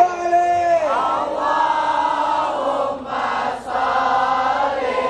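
Large crowd of men chanting a sholawat together. One voice holds a long note over the crowd for about the first second, then the massed voices carry on in sustained unison.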